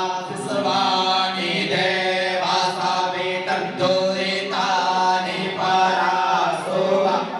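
Voices chanting Hindu mantras in a melodic line that rises and falls in phrases of a second or two, over a steady low drone.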